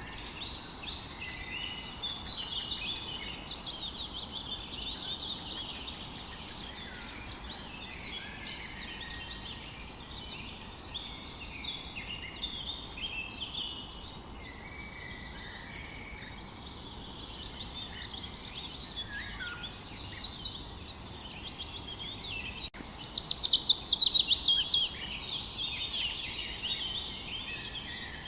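Morning chorus of several songbirds chirping and trilling over each other above a faint steady background hiss. The loudest song, about 23 seconds in, is a rapid trill that falls in pitch.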